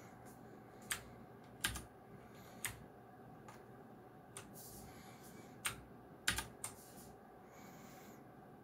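Keys pressed one at a time on a Geekstar–Deck Hassium Pro 108 mechanical keyboard with clicky blue switches: about eight separate sharp clicks at uneven intervals, two close together a little past the middle.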